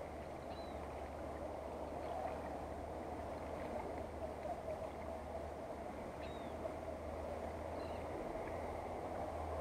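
Steady outdoor background noise at the waterside, with a few faint short high chirps: one about half a second in and two more between about six and eight seconds.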